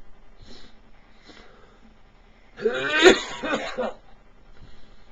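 A person coughing: a fit of coughs starting about two and a half seconds in, the loudest near three seconds in.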